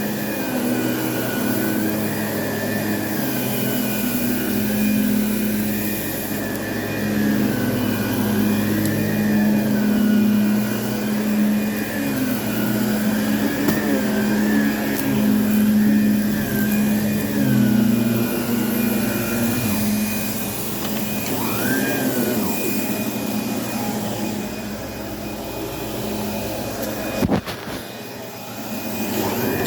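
Electric carpet-cleaning machine running steadily, its motor whine wavering up and down every couple of seconds over a low hum. Near the end there is a sharp click and a brief drop in level before the sound picks up again.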